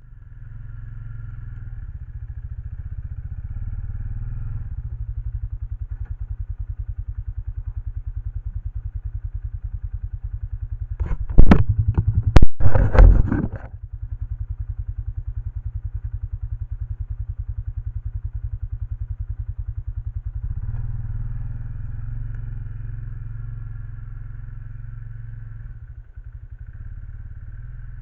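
A small engine running steadily with a fast, even pulse. About halfway through there are a couple of seconds of loud knocks and clatter.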